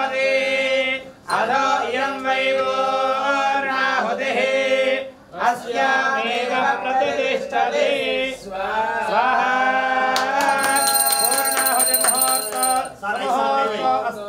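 Male voices singing a devotional chant over a steady low drone, with short breaths between phrases. A high ringing in quick, even strokes joins for a couple of seconds about ten seconds in.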